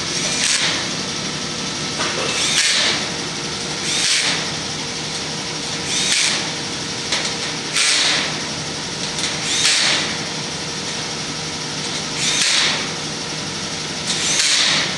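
Cordless drill driving nuts down onto the door's studs in short bursts, about eight times, each about half a second long with pauses of one to three seconds between.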